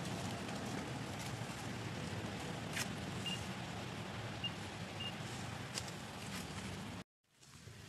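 Steady low rumble of wind on the microphone, with a few faint clicks and rustles in dry leaf litter as the monkeys move. The sound drops out suddenly for a moment near the end.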